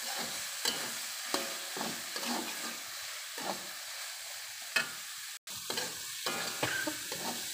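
Bakso meatballs in chili paste sizzling in an aluminium wok while a metal spatula stirs them, scraping against the pan in irregular strokes. The sound drops out for a split second a little past halfway.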